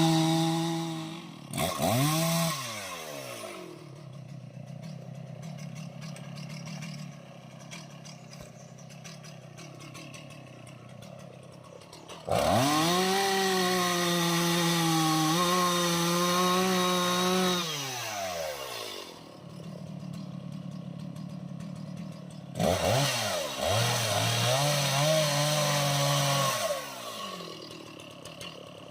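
Two-stroke chainsaw cutting aanjili wood. It runs at full throttle, drops to idle a second or so in and blips once, then idles. It revs up for about five seconds in the middle, its pitch sagging briefly under load, falls back to idle, and revs again for about four seconds near the end.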